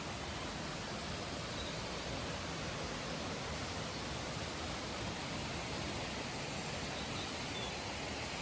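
Steady, even rushing noise with no change.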